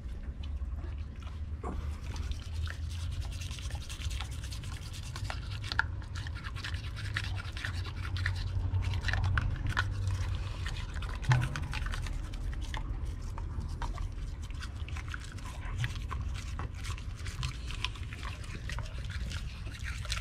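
Toothbrush scrubbing a dog's teeth, with many small wet clicks from the dog's mouth as it chews at the brush.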